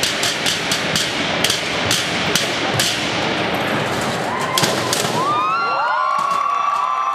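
Drumsticks beating metal trash cans in a fast, dense rhythm that stops about five seconds in, followed by a crowd cheering with shrill whistles.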